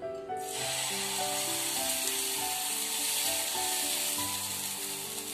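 Uttapam batter sizzling as it is ladled onto a hot, oiled flat tawa and spread; the sizzle starts suddenly a fraction of a second in and then hisses steadily. Background music with held notes plays underneath.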